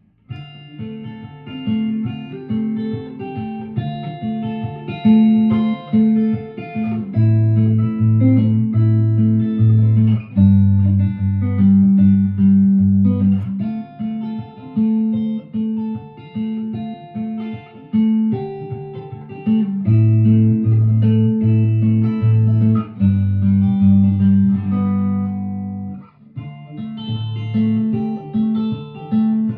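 1958 Guild Aristocrat hollow-body electric guitar being played: picked melody notes and chords over a moving bass line, note after note, with a brief let-up near the end.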